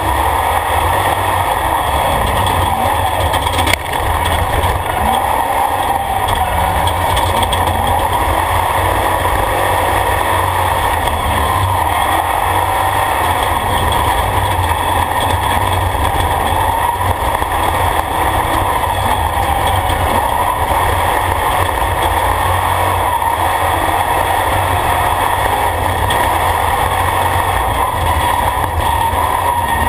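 Off-road race vehicle driving fast on a gravel dirt road, heard from inside its caged cockpit: loud, steady engine and road noise with a deep rumble.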